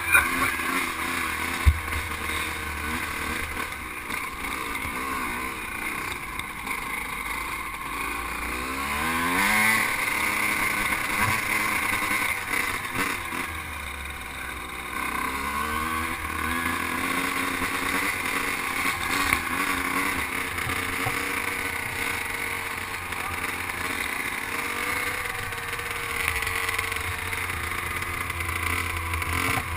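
Vintage 125 cc two-stroke motocross bike ridden slowly, heard from a helmet-mounted camera. The engine note rises and falls as the throttle opens and closes, most clearly about ten seconds in and again around fifteen seconds.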